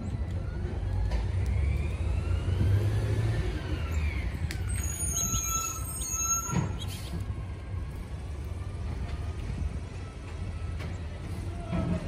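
Road traffic rumbling, with a passing vehicle whose whine rises and then falls in pitch over several seconds. A brief high-pitched squeal comes about five seconds in, and a single knock follows shortly after.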